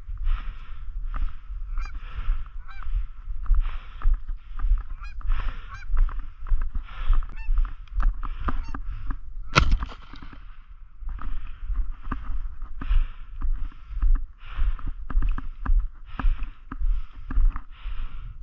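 Geese honking over and over, about one call a second, over a low rumble of wind on the microphone as the hunter moves. A single sharp knock comes about halfway through.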